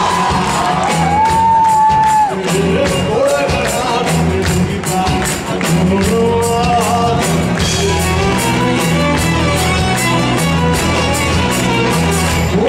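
Live folk-rock band playing: a male lead voice sings a gliding melody over strummed acoustic guitar, electric bass and a steady percussive beat.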